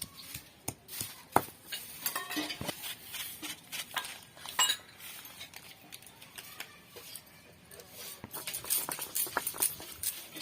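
Utensils clinking and scraping against cookware in scattered, irregular strokes, as in handling or stirring food in a pot.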